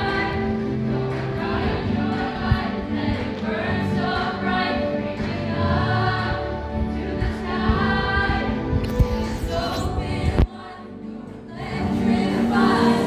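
Group of singers performing a pop-style show tune with backing music, many voices singing together. About ten seconds in the music and singing suddenly drop away, then return a second and a half later.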